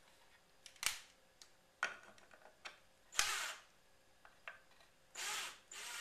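A DeWalt cordless drill driver driving a wood screw into a pine board in short runs in the second half, with the screw not yet run fully tight. Before that come a few sharp clicks and knocks from handling the screws and the drill.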